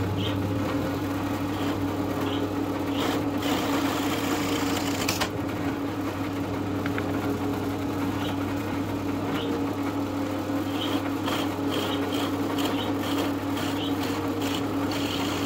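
Drill press motor running steadily, with light scraping and ticking as a curved wooden handle is worked against the spinning bit.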